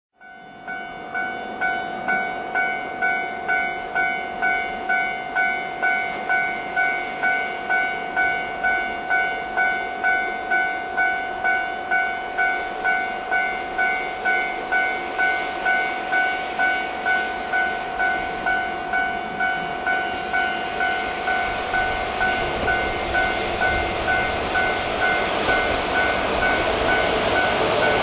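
A railway level-crossing alarm dings steadily, about one and a half times a second, as a diesel locomotive approaches. The locomotive's engine and wheels grow louder over the last several seconds.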